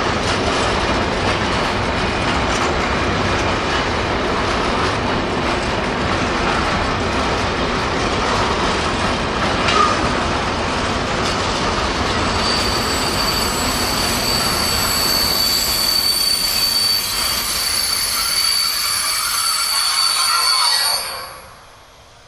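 Container freight train's flat wagons rolling slowly past with a steady rumble of wheels on rail and one louder clank about ten seconds in. From about halfway a high steady brake squeal joins in, and the noise falls away abruptly near the end as the train draws to a stop.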